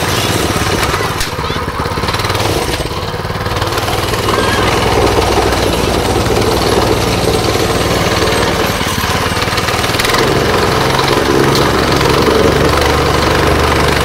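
Petrol-engined plate compactor running steadily, its vibrating plate pounding as it is pushed over sand spread on artificial grass to work the sand infill in.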